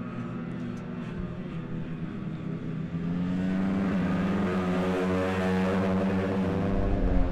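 Moto3 racing motorcycle engine at high revs as the bike passes through a corner, its pitch rising and dipping. It gets louder about three seconds in as the bike comes close.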